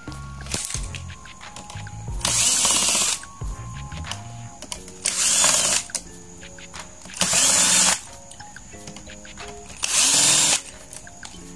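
Cordless drill-driver spinning in four short bursts of about a second each, driving out the screws that hold a TV's power supply board.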